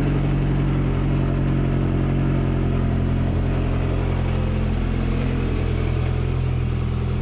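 Lotus Esprit V8 engine idling steadily.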